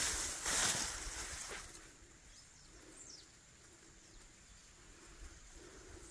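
A brief rush of noise on the microphone, then a quiet open pasture with a thin, steady high insect tone and two short, falling bird whistles.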